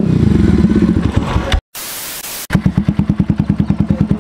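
Bajaj Avenger 220 Cruise's single-cylinder engine running through an SC Project aftermarket silencer. For the first second and a half the firing comes fast and closely packed. Then there is a brief cut and a short burst of hiss, after which the engine settles into an idle with distinct, even exhaust pulses, about ten a second.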